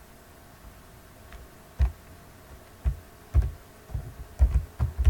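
Computer keyboard typing: separate keystrokes begin about two seconds in and come faster toward the end.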